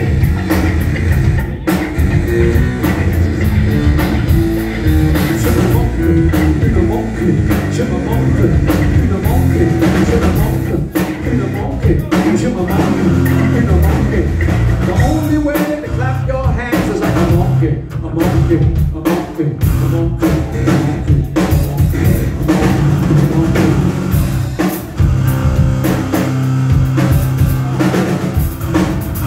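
Live rock music from a trio: electric guitar, electric bass and a drum kit playing together.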